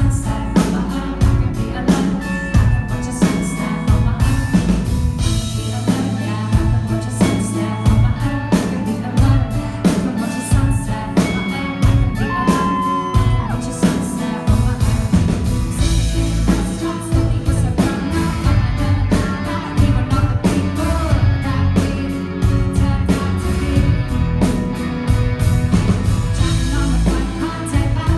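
Live pop-rock band music: a woman singing lead into a microphone over a steady drum beat, bass and keyboard, heard from the crowd in a concert hall.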